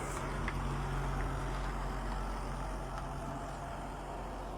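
Steady low electrical hum with hiss, slowly getting quieter, and a couple of faint ticks.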